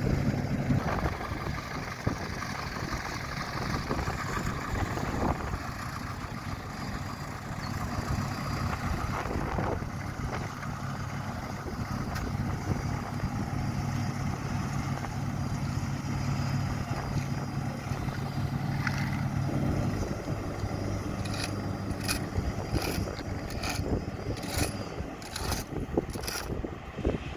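A heavy road-paving machine's diesel engine running steadily as asphalt is laid. Its low hum drops away about twenty seconds in. Near the end come a run of sharp clicks and knocks.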